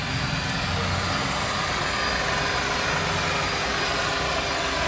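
Electric rotary car polisher running steadily, its buffing pad working over the paint of a car door. It is the finishing stage of the polish, meant to bring up the shine.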